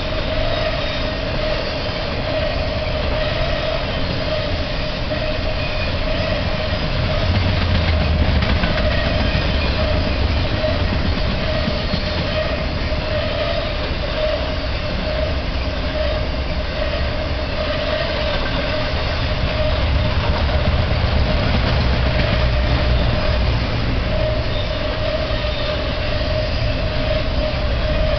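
Intermodal freight train cars loaded with truck trailers and containers rolling past, a continuous rumble and rattle of wheels on rail. A steady tone runs above the rumble throughout.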